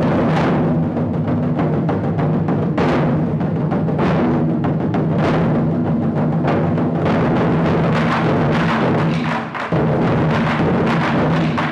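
Ensemble of Chinese barrel drums (tanggu) played together with sticks in dense, rapid, continuous drumming, with a brief let-up about nine and a half seconds in.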